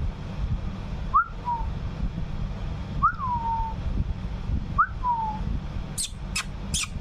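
A two-part whistle, a quick upward sweep then a falling glide, repeated three times about two seconds apart. About six seconds in, a run of evenly spaced sharp clicks, about three or four a second, begins.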